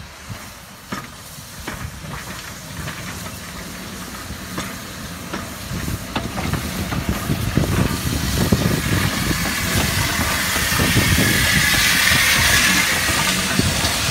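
Steam locomotive 6412, a GWR 6400 class 0-6-0 pannier tank, moving a push-pull autotrain past at low speed. Clicks of wheels on the rails build into a low rumble, and steam hisses. It grows louder as the engine passes, and the hiss is loudest near the end.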